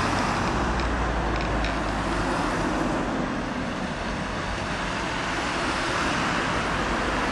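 Steady road traffic noise from a queue of cars in a traffic jam, with a low engine hum underneath.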